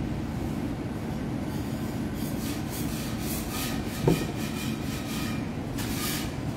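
Steady low background rumble under close-up chewing and mouth sounds, with a brief vocal sound about four seconds in. Near the end a paper napkin rustles against the mouth and moustache.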